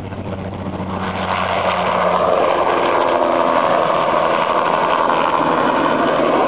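Bell 206 JetRanger helicopter passing low overhead, its rotor and turboshaft engine growing louder over the first two seconds, then staying loud and steady.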